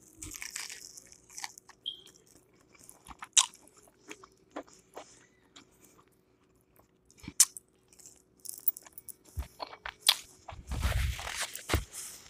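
Close-miked chewing of crispy battered fried food: irregular crunches and crackles with each bite, and a louder, noisier stretch near the end.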